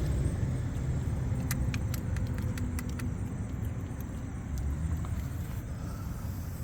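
A steady low rumble, with a quick series of light clicks between about one and a half and three seconds in.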